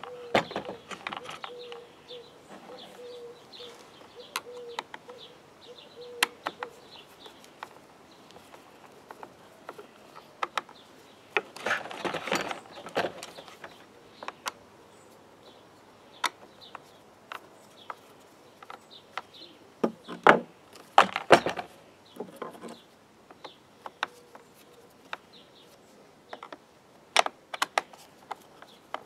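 Scattered clicks and knocks of plastic and metal string-trimmer parts being handled and fitted by hand, with the loudest knocks in a short cluster about two-thirds of the way through.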